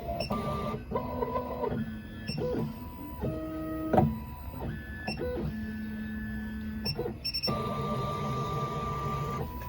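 Miracle A9 key cutting machine's stepper motors whining as they drive the probe through automatic calibration measurements. The whine holds a steady pitch for a second or so, then jumps to another, with short clicks as the carriage stops and starts and a sharper knock about four seconds in.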